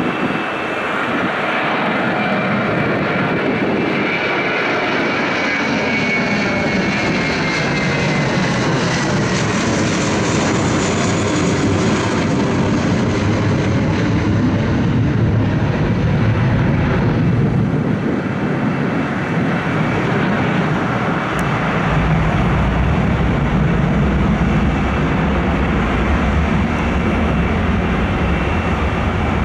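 Twin-engine jet airliner climbing out overhead just after takeoff: a steady jet roar. A high fan whine falls in pitch as the plane passes over about seven seconds in, and a deeper rumble builds near the end as it flies away.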